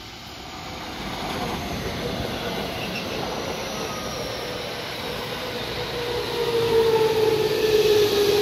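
JR West electric commuter trains at a station platform: a 223-series train running by on the far track, then a 221-series train moving along the near track. The rumble of steel wheels on rail builds up, and a slowly falling motor whine grows loudest near the end.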